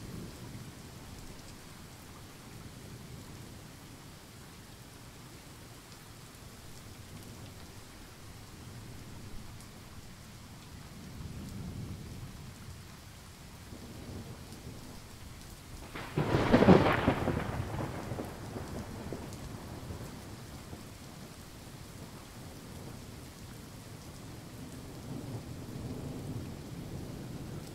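Thunderstorm: steady rain with low rumbles of thunder, and a loud thunderclap a little past halfway that rolls off over a couple of seconds.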